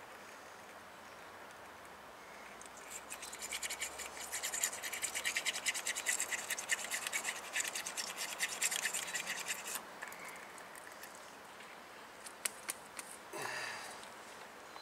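A small brush scrubbing out the slide-pin bore of a brake caliper bracket, with quick back-and-forth strokes starting about three seconds in and stopping near ten seconds, followed by a few light clicks.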